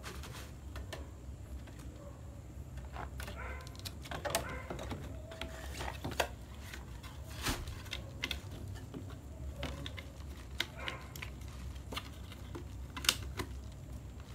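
Clear plastic box sleeve and bubble wrap crinkling and clicking under handling as a figure box is slid into the sleeve: irregular light crackles and ticks, with a few sharper snaps, over a low steady hum.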